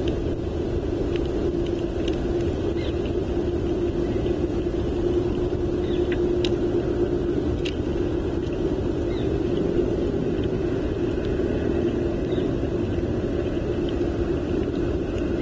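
Steady wind rumble on an outdoor nest-camera microphone in a snow storm, with a constant low hum under it and a few faint, short high ticks scattered through.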